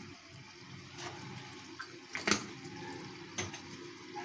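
Three light clicks or taps, the loudest about two seconds in, from kitchen things being handled over a bowl, with a steady low hum underneath.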